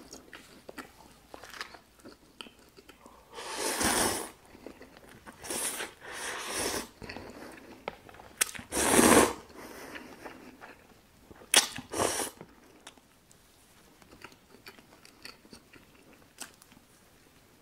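Close-miked mukbang eating sounds: chewing and biting, with several longer bursts of slurping instant cup noodles, the loudest about nine seconds in, and a few sharp mouth clicks around twelve seconds.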